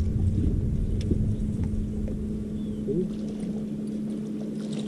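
Bass boat's electric trolling motor humming steadily, under a low rumble that eases off about halfway through.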